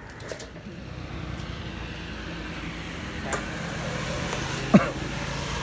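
A motor vehicle's engine running steadily, slowly growing louder, with one short sharp vocal cry about five seconds in.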